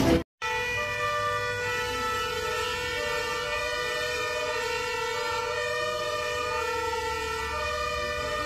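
Fire engine sirens sounding together, several steady tones held at once.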